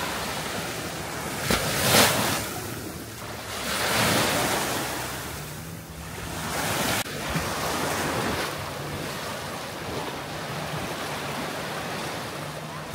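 Small waves lapping and washing up the sand at the water's edge, swelling and ebbing every couple of seconds, loudest about two seconds in. Wind buffets the microphone.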